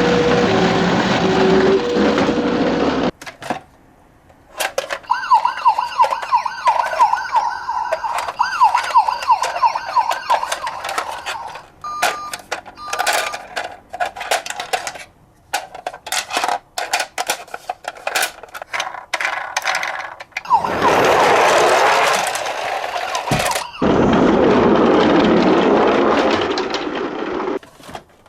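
Toy emergency vehicles' electronic sirens. First comes a two-tone hi-lo siren over a steady noise. After a short gap a fast warbling siren plays, then two short beeps. All through run many sharp plastic clicks and rattles, with two stretches of steady hissing noise near the end.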